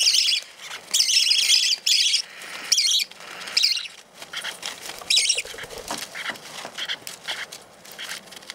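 Small pet parrots (lineolated parakeets and a green-cheeked conure) chirping in repeated short, high-pitched bursts as they peck at seed on paper towel, with light ticks of beaks. The calls come thick in the first few seconds and thin out after about five seconds.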